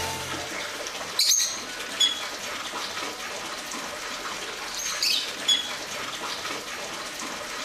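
Water flowing steadily in a greenhouse water feature, with parrots giving a few short, high calls: about a second in, at two seconds, and twice around five seconds.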